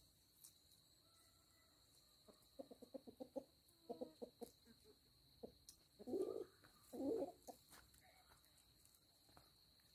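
Chicken clucking: a quick run of short clucks, then two louder, longer calls a second apart.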